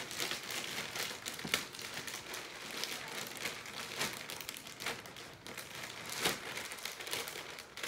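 Clear plastic wrap crinkling and rustling as it is pulled and peeled off a mattress, with sharp crackles every second or so.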